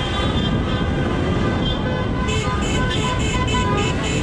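Celebratory car horns honking in a slow-moving traffic jam, over engine and street noise with mixed voices. About halfway in, a fast regular beat of about four strokes a second starts up.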